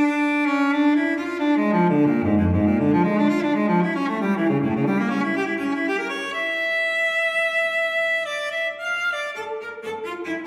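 Instrumental background music: a melody of held, overlapping notes in a low-to-middle register.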